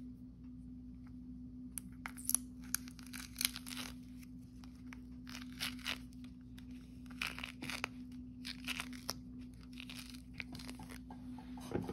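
Peel being torn off a mandarin orange by hand, close up: a run of short tearing sounds beginning about two seconds in.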